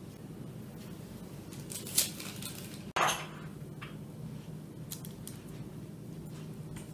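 Handling noises from shaping dough pastries and setting them on metal baking trays: a few brief scrapes and taps, the loudest about two and three seconds in, over a steady low hum.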